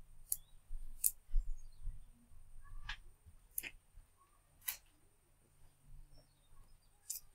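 Close-up handling of rubber bands being twisted tight around a small stone-and-wood hatchet: about half a dozen sharp, scattered clicks and taps.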